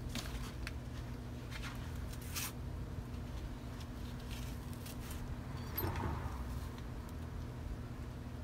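Hand pruning shears snipping through a gourd's vine stem, with a few faint clicks and rustling as the cut gourd is handled, over a steady low hum.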